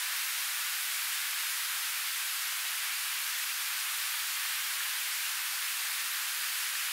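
A steady, even hiss from bananas frying in hot oil in a wok, blended with a rushing river.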